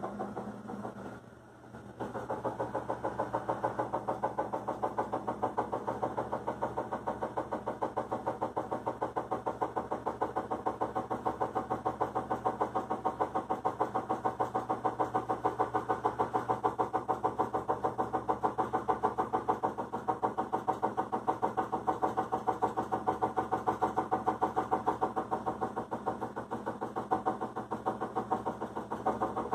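A motor running steadily with a fast, even pulse, starting about two seconds in.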